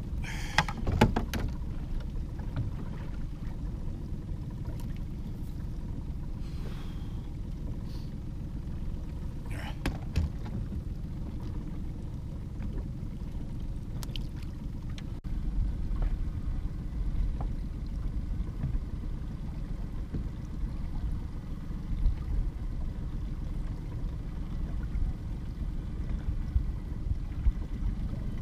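Steady low rumble of wind and lake water against a small boat, with a few sharp clicks and knocks in the first second or so.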